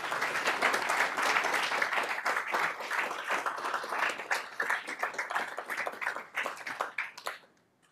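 Audience applauding: many people clapping at once, thinning out and dying away near the end.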